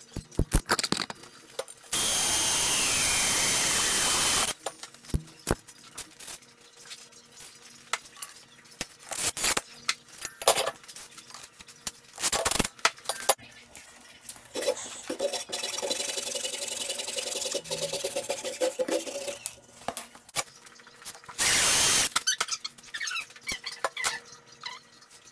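Cordless drill running in short bursts as it bores into a square steel tube, with a whine that falls away as it stops. Sharp knocks and taps on the steel and wood fill the gaps between runs.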